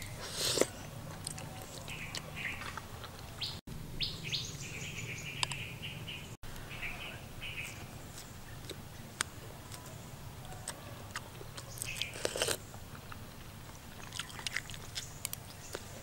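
Close-up eating sounds as spoonfuls are taken from a plate: mouth and chewing noises with sharp clicks, with two louder noisy mouthfuls about half a second in and near twelve seconds. Small birds chirp in short bursts in the background.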